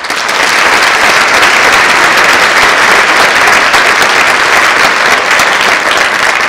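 Audience applause, starting suddenly and holding steady.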